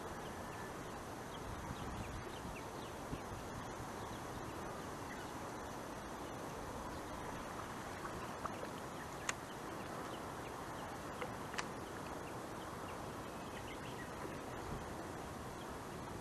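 Outdoor waterside ambience: a steady low hiss with faint scattered chirps, broken by two sharp clicks about nine and eleven and a half seconds in.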